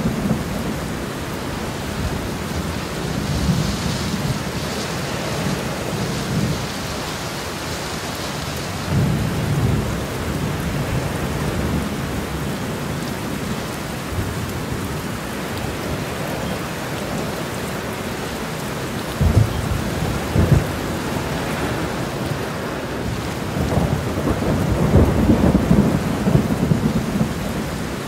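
Steady heavy rain with rolling thunder: low rumbles swell and fade several times, with two sharper thunderclaps about two-thirds of the way through.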